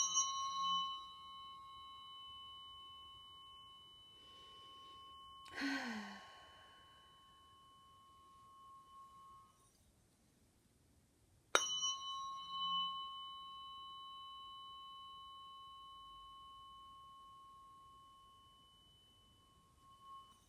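Tuning forks struck twice, at the start and again about 11.5 seconds in, each ringing out with a clear high tone that slowly fades. A deep sighing exhale is heard about five and a half seconds in.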